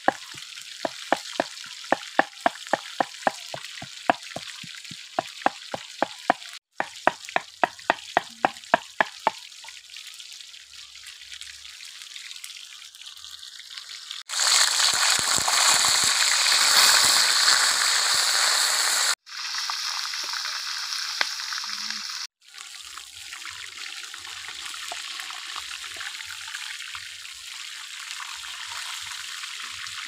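A pestle pounding in a clay mortar, about three strikes a second, for the first nine seconds or so. Then whole fish frying in oil in a wok over a wood fire, a steady sizzle, loudest for a few seconds about halfway through.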